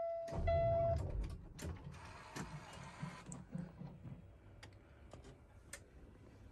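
A steady electronic warning buzzer stops about a second in. After it come rustling, a short hiss-like noise and scattered clicks and knocks.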